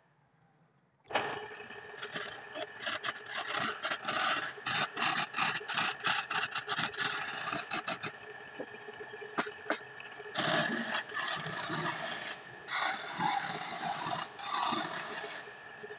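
A spinning wooden cylinder on a belt-driven wood lathe, worked by hand: a rough scraping, rasping noise with rapid chattering ticks over the lathe's steady hum. It starts about a second in and dips briefly twice.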